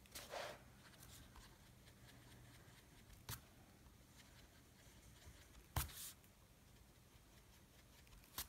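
Near silence with a few faint rubs of a Faber-Castell Perfection eraser pencil on paper, erasing small circles out of a pastel background, and three small ticks about 3 s in, 6 s in and near the end.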